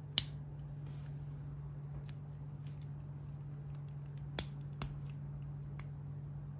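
LEGO pieces being snapped together by gloved hands: a sharp click just after the start and two more close together about four and a half seconds in, with faint small ticks of handling between. A steady low hum runs underneath.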